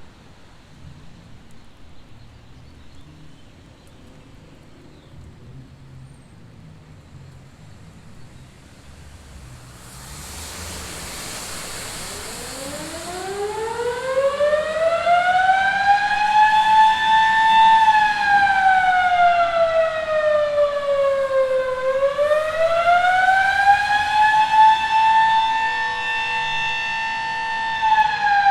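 Sterling M-5 civil defense siren sounding the Attack signal. About ten seconds in a rushing hiss starts, then the tone winds up from a low growl to a loud high wail, holds, sinks, climbs back and holds again, and is starting to fall at the end.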